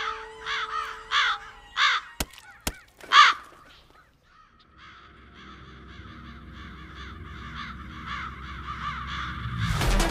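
A bird cawing about five times, loud and harsh, with two sharp clicks between the last caws. After a short lull, a dense run of quick chirping calls builds up, and electronic music with a beat comes in near the end.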